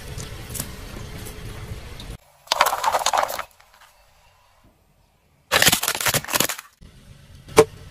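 A car tyre rolling over and crushing objects: two loud bursts of crackling and crunching about a second long each, the second as a hollow plastic toy gives way under the tyre. A single sharp crack comes near the end.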